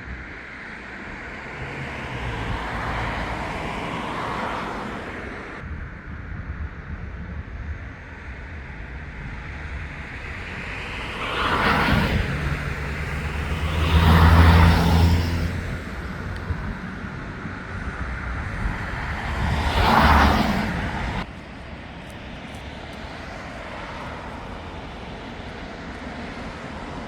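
Street traffic: vehicles passing by one after another, the loudest about halfway through with a low engine rumble, over a steady background of city noise.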